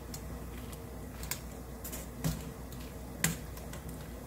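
Perforated stainless steel skimmer clicking against a stainless mesh strainer basket while young butterbur greens are stirred during blanching: a few sharp clicks about a second apart over a steady hiss.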